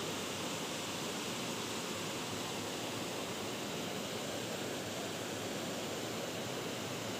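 Steady rush of river water pouring over a low rock cascade, even and unbroken.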